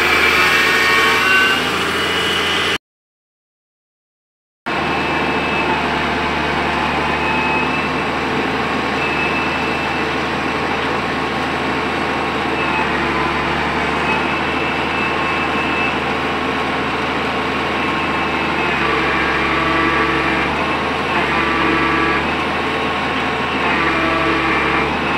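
Hydraulic excavator's diesel engine running steadily under working load. The sound cuts out completely for about two seconds near the start, then carries on.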